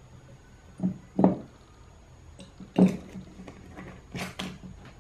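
A few short, sudden knocks and scrapes of small objects being handled on a tabletop, four or five in all, with the sharpest near the middle and a quick pair near the end.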